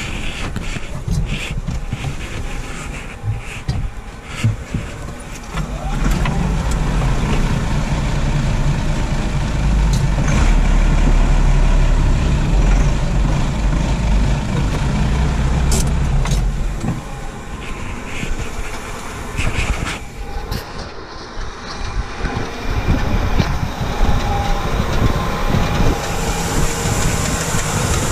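Massey Ferguson 399 tractor's diesel engine running, its low rumble growing louder about six seconds in and easing off again after about seventeen seconds, with scattered clicks and knocks from the cab and someone climbing down.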